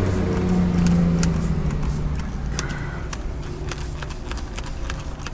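Degreaser sprayed from a hand trigger sprayer in a string of short, irregular squirts. Under it, a low vehicle engine drone fades away over the first two seconds.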